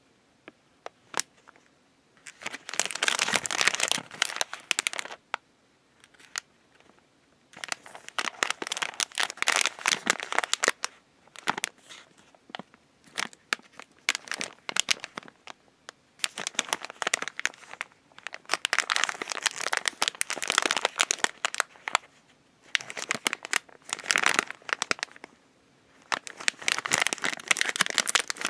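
Plastic snack wrappers crinkling as they are handled and opened, in bouts of a few seconds separated by short pauses with scattered light clicks.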